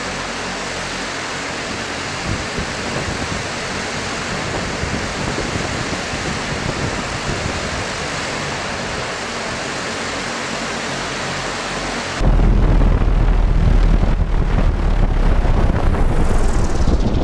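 The many small electric rotors of an e-volo Volocopter multicopter whirring steadily in a hover, an even rushing noise. About twelve seconds in, the sound jumps abruptly to a much louder, deeper rush that drops away near the end.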